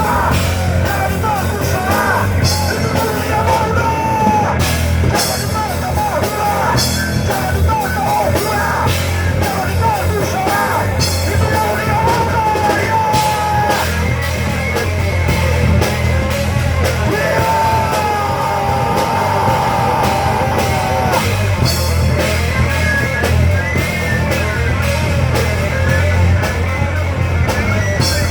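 Live rock band playing loudly: drums, bass and electric guitar, with a singer's yelled vocals over them.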